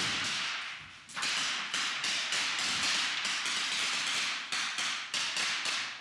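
Rifle fire inside a plywood-walled shoot house: after a short lull about a second in, a rapid, uneven string of sharp shots.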